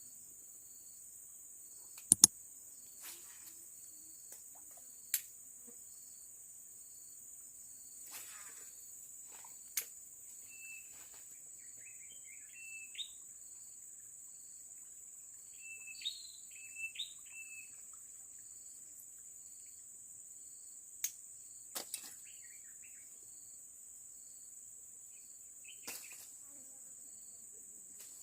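Steady high-pitched drone of forest insects, with short bird chirps in the middle stretch. A few sharp clicks or knocks are scattered through, the loudest about two seconds in.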